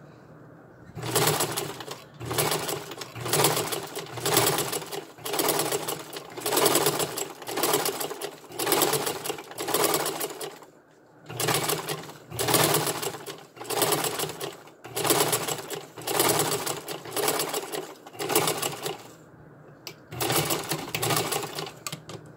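Vintage black sewing machine stitching ribbon onto nylon webbing, running in rhythmic surges about once a second. It pauses briefly about halfway through and again shortly before the end.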